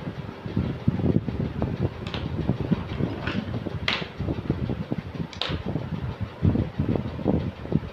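A fan running steadily with its air buffeting the microphone in uneven low thumps, and a few sharp light clicks, about four, from a phone being handled and worked on with a small screwdriver.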